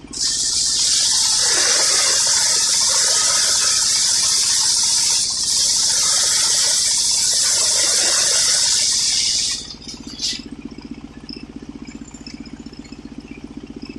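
Sawmill circular saw blade cutting through a coconut-wood log: a loud, steady hiss of about nine and a half seconds with a brief dip near the middle, then a short second touch of the blade about a second later. The saw's engine idles under it and is heard again afterwards.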